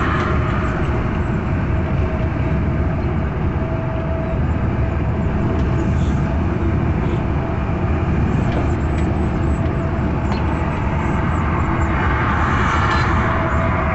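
Steady engine drone and tyre and road rumble heard from inside a truck cab cruising at highway speed, with a faint steady hum and a brief swell of hiss near the end.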